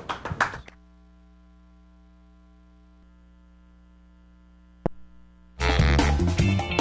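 Steady electrical mains hum on the broadcast audio, with a single click just before five seconds in. About a second later, loud music with a drum kit cuts in suddenly.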